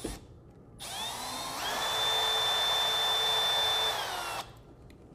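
Cordless drill driving a screw into the foot of a foam taxidermy mannequin: the motor starts about a second in, speeds up, runs steadily as a whine for about three seconds, then stops.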